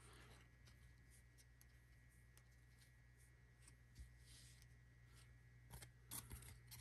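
Near silence with a faint low hum. Baseball trading cards are handled, giving soft clicks and rustles that come a little more often near the end.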